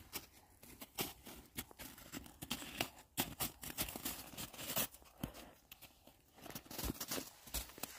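Footsteps crunching in snow: a Great Dane's paws stepping about close by, an irregular run of short crunches.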